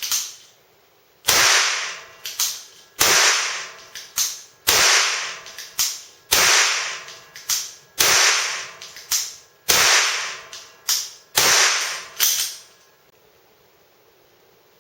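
Hartford/HWS Nagant M1895 model gun cap-firing: about eight loud, sharp shots roughly every second and a half, each ringing out briefly, with quieter clicks between them, stopping about two seconds before the end.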